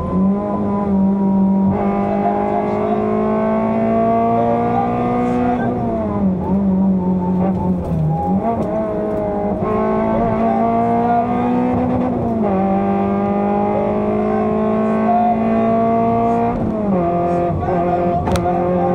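Fiat Seicento rally car's four-cylinder engine, heard from inside the cabin, driven hard on a special stage. The engine note climbs slowly and then drops sharply about five times as the driver shifts or lifts, with a sharp click near the end.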